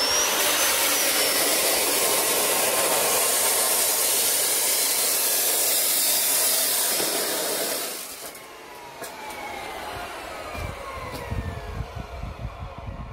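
Abrasive chop saw cutting steel pipe: the motor whines up, then the disc grinds loudly through the pipe for about seven seconds. After it is released the motor spins down with a falling whine.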